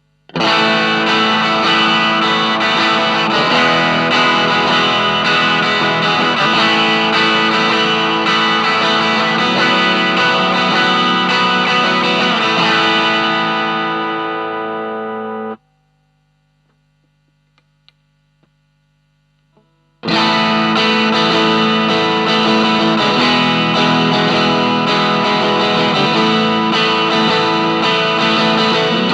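Electric guitar, a Stratocaster overdriven through an Ibanez Tube Screamer Mini into a Marshall MG15 amp, playing distorted chords. Partway through, a held chord rings out, fading, and is cut off abruptly. A few seconds of low amp hum with faint clicks follow, then the overdriven playing starts again.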